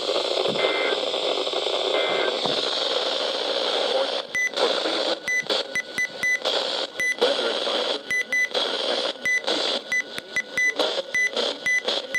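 Weather radio receiver static hiss with one short high data burst about two seconds in, the end-of-message burst that closes an EAS warning. From about four seconds in comes a rapid string of short, high electronic beeps, and the static cuts in and out between them.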